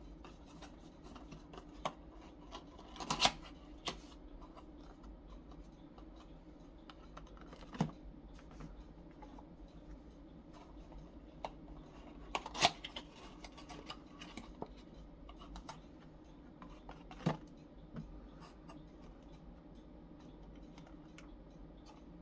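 Scattered clicks, taps and light scrapes of small paperboard boxes being folded and set down inside a larger cardboard box, over a faint steady hum.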